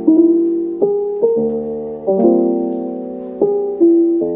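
Background music: soft piano chords, a new chord struck every second or so and each left to ring and fade.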